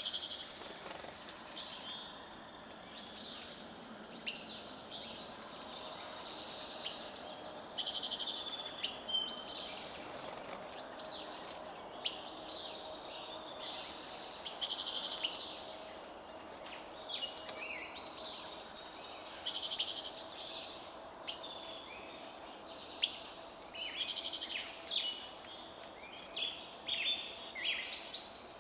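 Several forest songbirds calling together: short chirps, sharp chips and rapid buzzy trills overlapping one another, over a steady background hiss and a faint steady hum.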